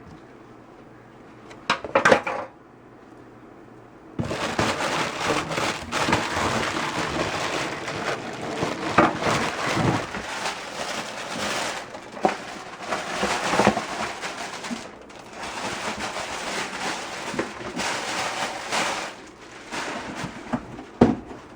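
Plastic packaging crinkling and rustling for about fifteen seconds, dense and crackly, as a packed item is unwrapped by hand, after a few light knocks.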